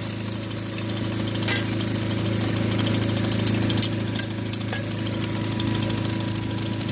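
Keene 151S dry washer running: the small engine driving its blower runs steadily, with a constant rush of air, and a few short ticks are heard over it.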